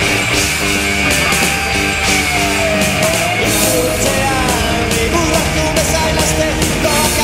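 Loud rock music with a singing voice over a steady drum beat.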